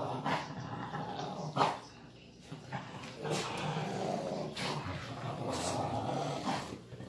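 A dog growling in play while chewing and tugging at toys, a continuous low growl that eases briefly about two seconds in.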